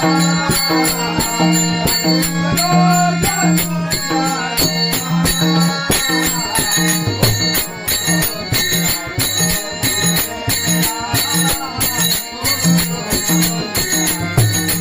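Devotional bhajan music with no words: small hand cymbals strike a fast, steady beat over drum strokes, a held low note and a wandering melody.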